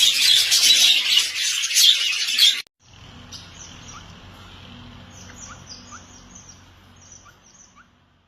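Budgerigars chirping: a loud, dense chatter of many birds that cuts off suddenly after about two and a half seconds, followed by quieter, scattered short chirps over a faint low hum that fade out near the end.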